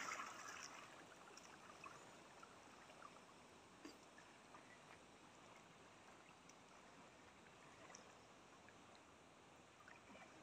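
Near silence with faint water sounds of a man swimming across a pond; the splashing of his entry fades out in the first second, leaving soft lapping and a few small ticks.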